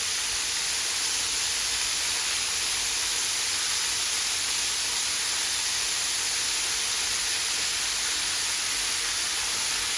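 Flour-dredged chicken pieces frying in hot grease: a steady, even sizzle.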